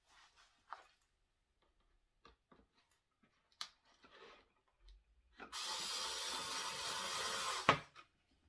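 Cordless electric screwdriver driving a screw into a plastic toy housing. The motor runs steadily for about two seconds, starting about halfway in, and stops with a sharp click. Before it there are light clicks of the screw and driver being handled.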